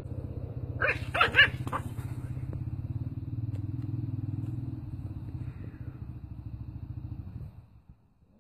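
A small puppy yapping: four quick, high barks about a second in. Under the barks runs a steady low rumble with a fast even pulse, like an engine running, which stops shortly before the end.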